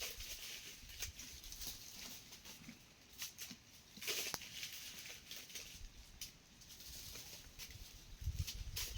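Scattered rustling and crackling of leaves and plant stalks, with irregular small clicks and a louder rustle about four seconds in.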